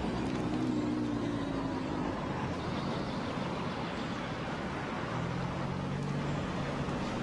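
Steady road traffic noise, with the low hum of vehicle engines passing near the start and again about five seconds in.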